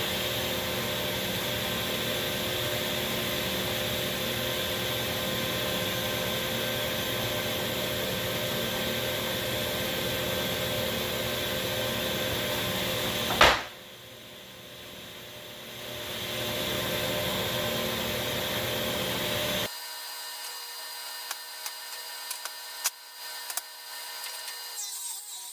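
Delta table saw running and ripping maple boards to true up an edge, a steady loud whir of blade and wood. About halfway through there is a single sharp crack, the loudest moment, after which the sound drops, builds back up, then stops abruptly, leaving quieter knocks and clatter.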